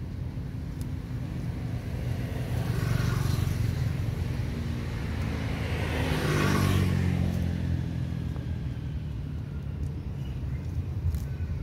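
A motor vehicle passing by: its engine and tyre noise swell to a peak about six to seven seconds in and then fade, with a smaller swell about three seconds in.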